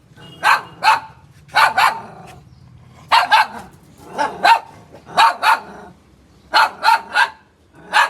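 A dog barking repeatedly, short sharp barks in quick bursts of two or three, a new burst about every second.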